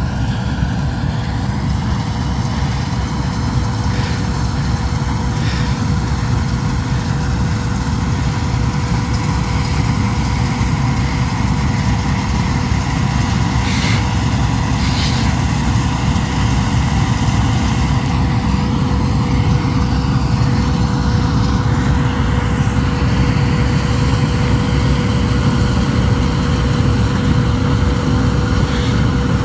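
Bizon Rekord combine harvester running steadily: a constant low diesel drone with a steady whine over it, and a few brief rattles.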